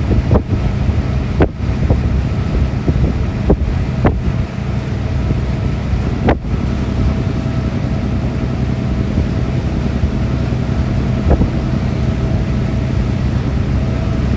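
An engine running steadily, with wind buffeting the microphone and a few sharp knocks.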